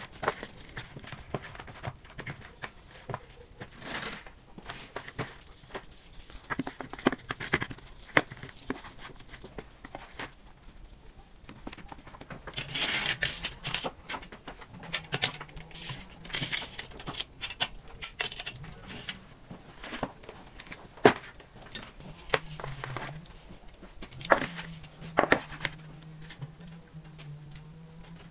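Close-up handling sounds: gloved hands rubbing spice-coated raw chicken, then scattered sharp clicks and knocks as a wire metal skewer rack is handled and chicken is set on it. A faint low hum runs under the second half.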